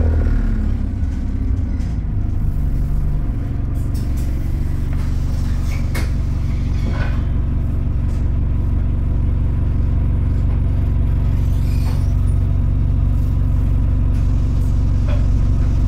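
Alexander Dennis Enviro400 double-decker bus's diesel engine running steadily under way, heard from inside the passenger saloon as a loud low drone. Its note shifts in the first few seconds, then holds level, with a couple of sharp rattles from the bodywork about six and seven seconds in.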